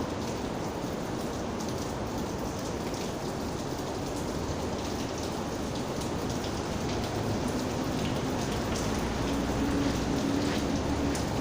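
Steady rain falling: a dense even hiss with the light ticks of single drops hitting a surface. From about two-thirds of the way in, a low steady hum joins underneath.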